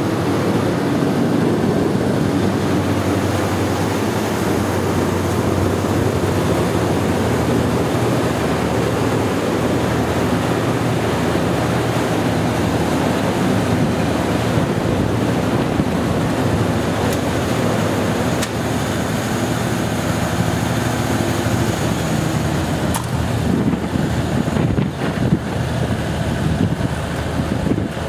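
Perkins diesel engine of an FG Wilson generator set running steadily at constant speed: a low, even drone.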